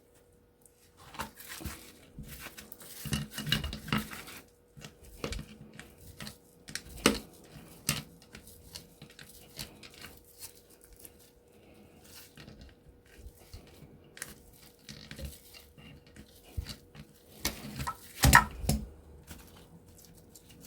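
Metal tools and parts of a refrigerator compressor clinking and knocking as its bolts are taken off, a string of small scattered clicks with a few sharper knocks, the loudest near the end.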